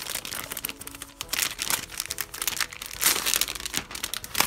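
Clear plastic wrapping crinkling and crackling as it is handled and slid off a journal, louder about a second and a half in and again around three seconds, over soft background music.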